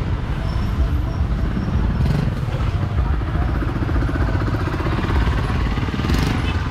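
Street-market ambience dominated by motorbike engines running close by, with a steady low rumble and an engine's rapid pulsing in the middle of the stretch, over indistinct crowd voices.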